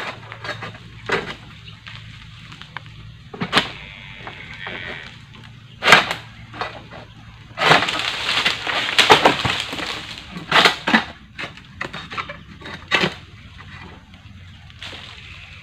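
Egrek (Palm King Pro long-pole harvesting sickle) pruning dead oil palm fronds: a series of sharp cracks as the hooked blade is pulled through the frond stems. About halfway through, a long rustling crash of dry fronds comes down through the leaves for a couple of seconds, followed by a few more cuts.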